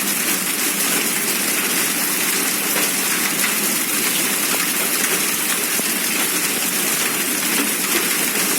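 Hailstorm: hail and heavy rain falling steadily, a dense even hiss threaded with many small ticks of impact.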